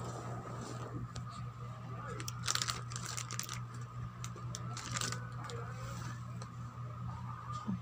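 A few short crinkles and rustles of plastic snack packaging being handled, over a steady low hum.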